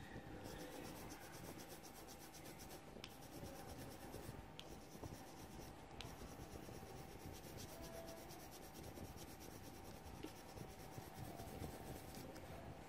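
Coloured pencil shading on paper: a quiet, continuous scratching of pencil strokes.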